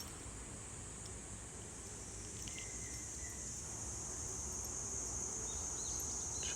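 Insects droning steadily in a high-pitched chorus that grows louder near the end, over faint outdoor background noise.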